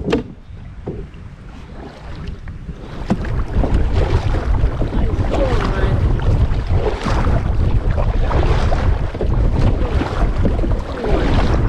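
Wind buffeting the microphone while a canoe is paddled across choppy lake water, with paddle strokes and water splashing and gurgling around the hull. The wind rumble comes up loud about three seconds in.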